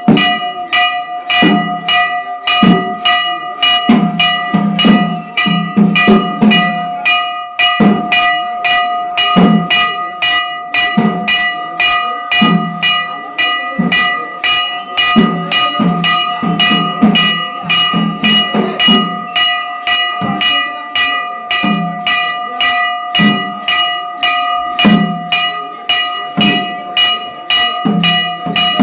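Temple bell rung rapidly and continuously, about two strikes a second, each strike ringing on into the next.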